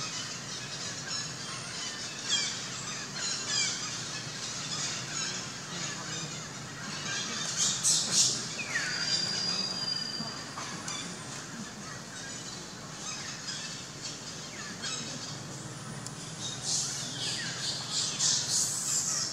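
Newborn pigtail macaque squealing: short, high, falling squeaks repeated every second or so, with a longer falling squeal about eight seconds in.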